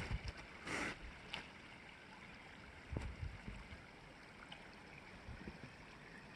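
Faint, steady running of a creek, with a short rustle just under a second in and a couple of light clicks.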